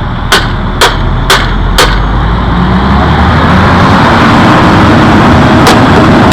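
Hammer blows knocking a cracked office chair base off its gas cylinder, four sharp strikes about two a second, then one more near the end. From about two seconds in, a loud steady engine noise from concrete work swells up and covers everything.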